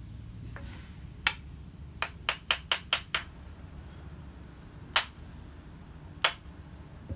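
Light taps of a small hand-forged ball peen hammer: one tap, then a quick run of six at about five a second, then two more single taps.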